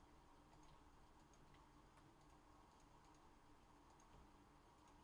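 Near silence: faint room tone with scattered, irregular soft clicks.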